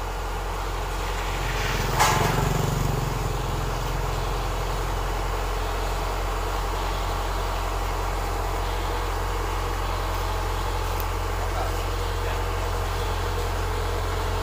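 Kubota DC-105X combine harvester's diesel engine running steadily as it creeps forward on its tracks onto a flatbed truck. A single sharp clunk about two seconds in is the loudest sound.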